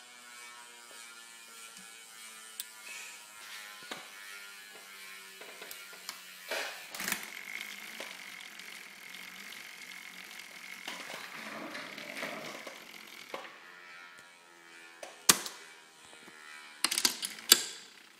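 Bicycle chain running through the roller of a Blackspire Stinger bottom-bracket-mount chain guide as the cranks turn: a whirring that slowly drops in pitch, then picks up again. Several sharp knocks come near the end and are louder than the whir.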